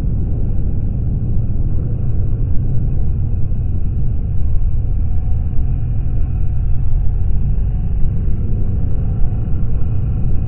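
BMW R1200GS motorcycle on the move, its flat-twin boxer engine under a steady low rumble of wind on the camera's microphone.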